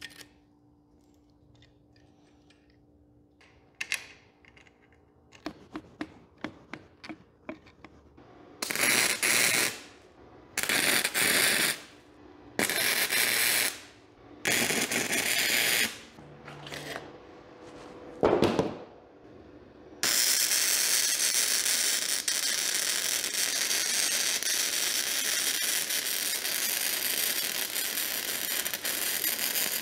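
Arc welding on steel pieces held in a bench vise. Small clicks of the metal being handled in the vise come first. Then there are several short tack welds of about a second each, and from about two-thirds of the way in a continuous weld with a steady crackle.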